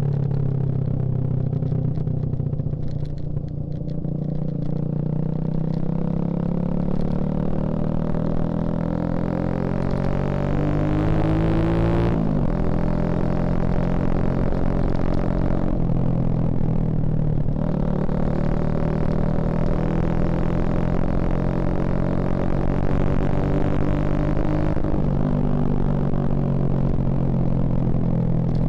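Suzuki Shogun Axelo R 2011's single-cylinder four-stroke engine running under way. Its pitch climbs steadily as it accelerates, then drops suddenly about twelve seconds in at a gear change. It holds fairly steady with a brief dip a few seconds later, and falls again near the end as the bike eases off.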